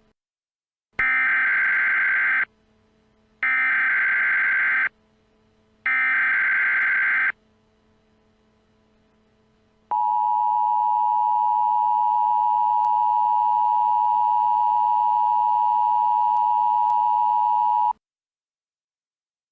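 Emergency Alert System signal: three bursts of SAME digital header tones, each about a second and a half long with short gaps between them, followed about two and a half seconds later by the EAS two-tone attention signal, a steady harsh dual tone held for about eight seconds that cuts off abruptly.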